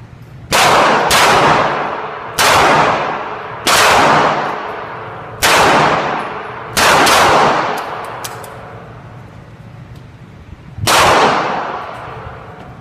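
Pistol shots in an indoor range booth: a string of single shots at uneven spacing, then one more after a pause of a few seconds. Each crack is followed by a long, echoing decay off the concrete.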